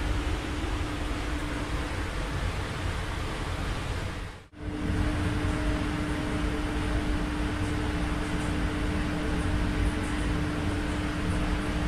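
Paint spray booth's ventilation fans running, a steady rush of air with a low hum. The sound cuts out briefly about four and a half seconds in, then resumes unchanged.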